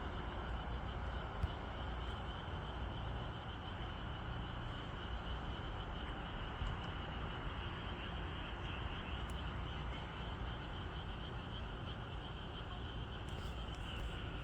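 A steady, high-pitched chorus of night-calling frogs or insects, finely pulsing, over a low, steady rumble.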